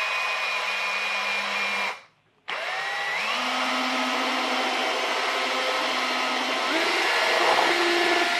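A small electric motor whining steadily. It cuts out about two seconds in, spins back up with a rising whine, and steps up in speed near the end.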